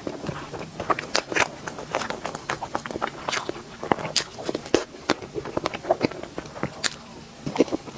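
A person chewing and biting into sweets close to the microphone, in an uneven run of sharp clicks, several a second.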